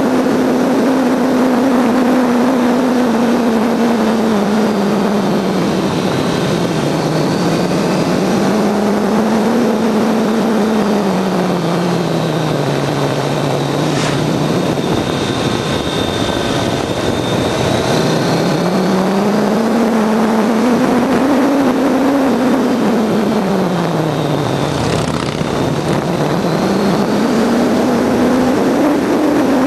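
Motorcycle engine heard from on board, its pitch rising and falling several times as the rider opens and closes the throttle through a run of bends, over a steady rush of wind noise.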